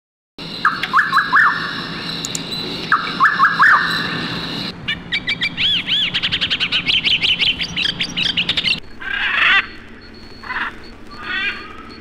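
Amazon rainforest animal sounds, mainly birds calling over a steady high tone. Quick clusters of three or four falling whistles come first, then a fast run of repeated arching notes, then an abrupt change about nine seconds in to other scattered chirps.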